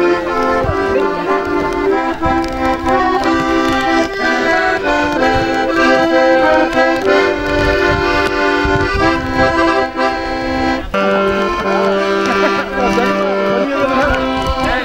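Two piano accordions playing a tune together, held chords with the notes changing every second or so; about eleven seconds in the bass drops to a lower note.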